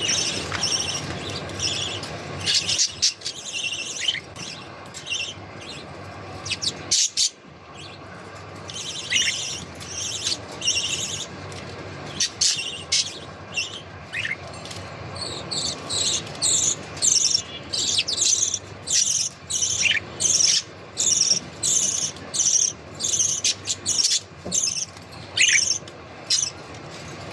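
Pet budgerigars chirping in many short, high calls, sparse at first and coming several a second through the second half.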